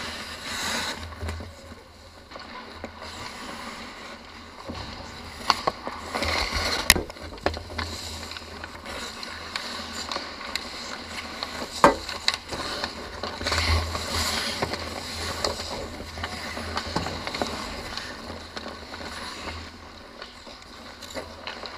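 Ice skates scraping and carving on the ice near the net, with sharp clacks of sticks and puck, the loudest about seven and twelve seconds in.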